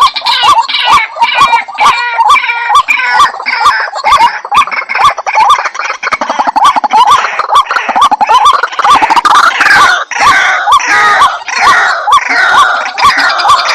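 White-breasted waterhen (ruak-ruak) calling for use as a bird lure: a fast, evenly repeated call note, about three a second, with further calls overlapping it and growing busier in the second half.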